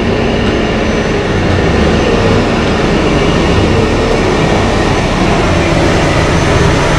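BelAZ-75710 mining dump truck's twin diesel engines running steadily under load as the giant truck drives on a haul road.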